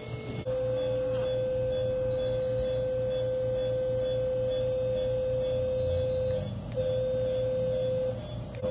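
Electrosurgical unit's steady single-pitched activation tone, sounding while the electrocautery pencil is energized to cut and coagulate tissue. It is held for about six seconds, breaks off briefly twice and starts again. Fainter short high beeps come in a few times.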